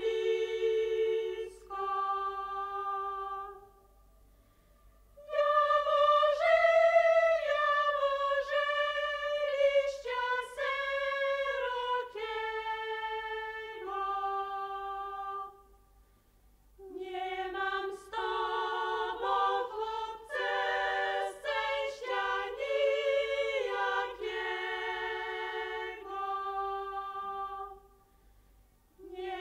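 Background music: a choir singing a cappella in long phrases, broken by short pauses.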